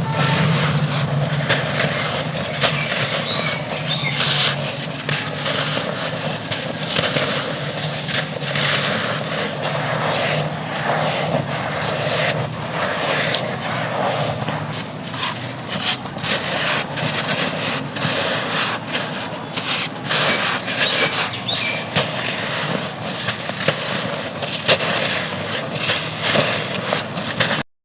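Dry red dirt chunks crumbling, a dense, continuous run of small crunches and crackles, with a brief cut to silence near the end.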